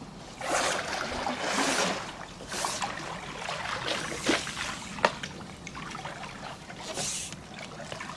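Pool brush on a telescopic pole swept through pool water, sloshing and splashing in several bursts, with two short sharp knocks around the middle.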